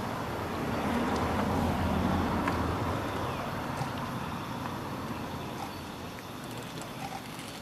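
A road vehicle passing: rushing noise that swells to its loudest about two seconds in, then slowly fades.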